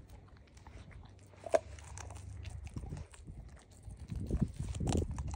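German Shepherd dog chewing and gnawing a chunk of raw deer meat: irregular wet bites and crunches, with a sharp click about a second and a half in and a louder run of chewing near the end.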